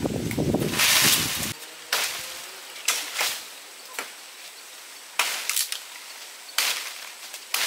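A rushing noise that cuts off about a second and a half in, then a series of sharp knocks, about eight, coming irregularly roughly once a second.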